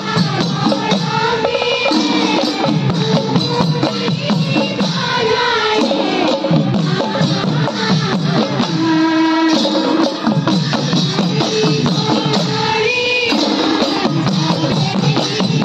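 Women singing an Assamese Dihanaam devotional chant, with a lead voice over a microphone. Khol drums and small hand cymbals (taal) keep a steady beat underneath.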